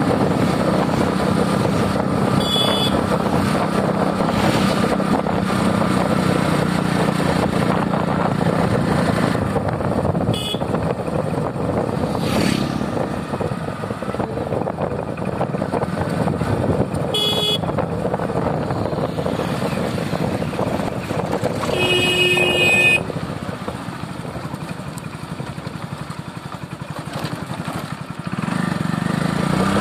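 Motorcycle engine running at riding speed with wind rushing over the microphone. The horn beeps briefly four times, and the engine drops off for a few seconds after the last beep before picking up again near the end.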